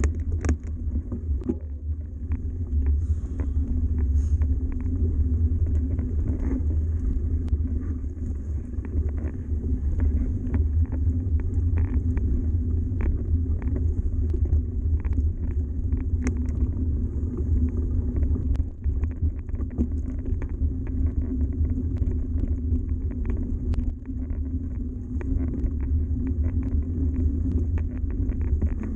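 Yeti SB130 mountain bike riding steadily over a gravel track: a continuous low rumble from the tyres and frame, with frequent small clicks and rattles from stones and the bike's parts.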